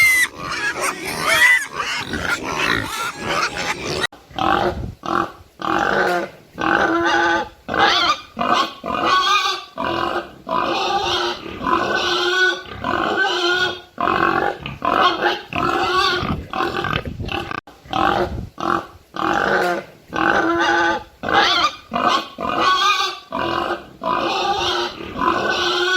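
Pig calling in a rapid string of short, pitched grunts and oinks separated by brief gaps. The sound changes character about four seconds in.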